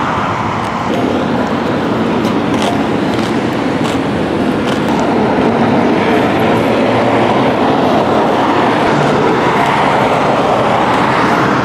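Loud, steady road traffic rushing past, with a few faint clicks.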